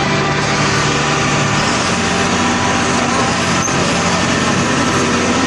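John Deere 9610 combine running steadily while harvesting soybeans: a loud, even machine drone with several steady tones.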